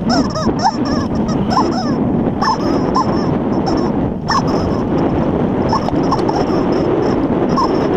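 Rubber squeaking chicken toy on the mountain bike's handlebars giving short squeaks about once a second, over the steady rumble of tyres and bike on a dirt trail.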